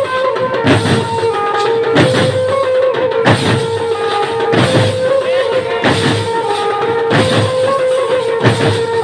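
Loud music played over a DJ sound system: a heavy drum beat of about three hits every two seconds under a long held tone, with shorter melody notes above.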